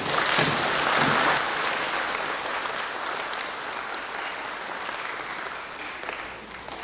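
Audience applauding, loudest in the first second and a half and then slowly tapering off.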